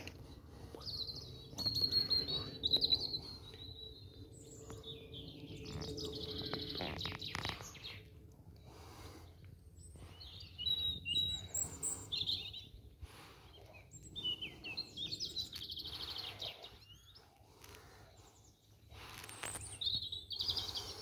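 Wild birds singing, with bursts of warbling, chirping phrases every few seconds over a low, steady background rumble.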